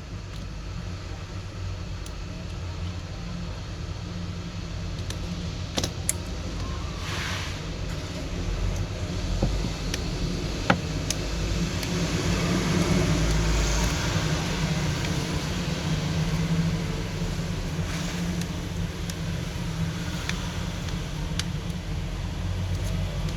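Steady low background rumble, like road traffic, growing slightly louder, with a few small sharp clicks of parts being handled, one about six seconds in and another near eleven seconds.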